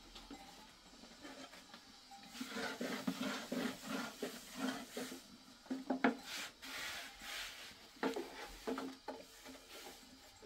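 Thin wooden rolling pin rolling flatbread dough out on a low wooden board: repeated rubbing, scraping strokes with a few sharp wooden knocks.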